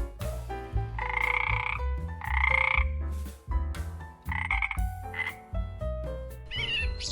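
Frog croaking: three calls of under a second each, the first about a second in.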